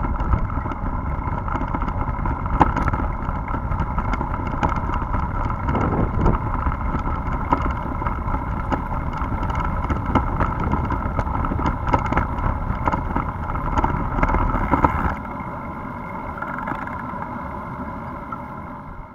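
Bicycle riding over wet cobblestones: a constant rattling and jolting over wind and tyre noise. About fifteen seconds in it turns to a smoother, quieter hiss of tyres on wet asphalt.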